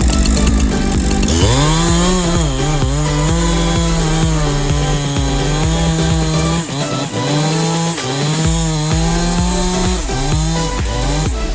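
Chainsaw starting up about a second in and then cutting, its engine note repeatedly dipping under load and climbing back to full revs. Background music plays underneath.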